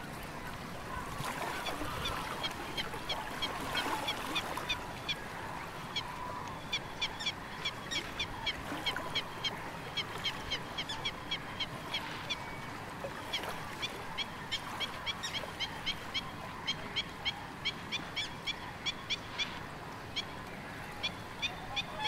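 Birds calling at dawn at a wetland, with one bird repeating a short, high call about two to three times a second over a steady background of many distant birds.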